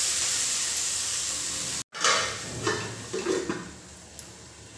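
Chopped lobia (long beans) sizzling in hot mustard oil in a kadhai as they are stirred with a spatula. After a sudden break about two seconds in, a few metal knocks as the pan is covered, and the sizzling fades.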